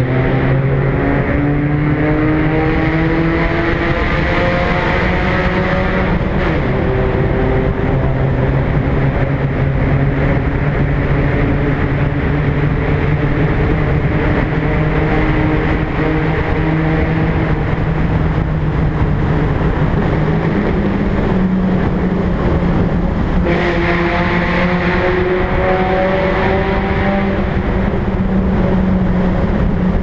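Car engine and exhaust pulling steadily while driving through a road tunnel. The note rises slightly over the first few seconds, then holds a steady pitch. From about three-quarters of the way through it turns louder and harsher.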